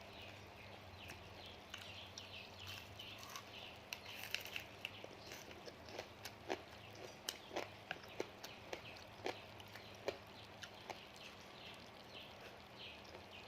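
Close-up eating sounds of crunchy papaya salad being chewed: irregular sharp crunches and clicks.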